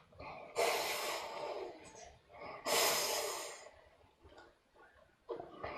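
A person imitating a snake, hissing through the teeth in two drawn-out hisses of about a second each, with a third starting near the end.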